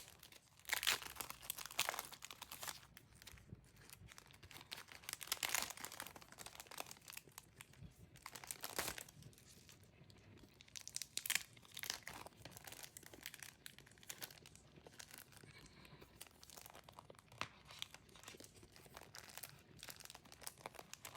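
Protective packaging around a folder poster being unwrapped by hand: irregular bursts of crinkling and tearing.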